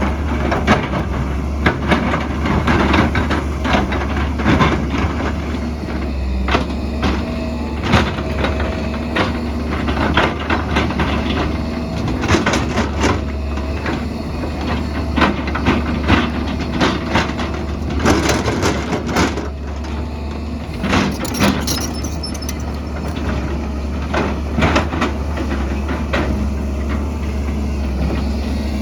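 Excavator's diesel engine running steadily as a low hum, with frequent knocks and clatters of the bucket striking and scraping rock and soil.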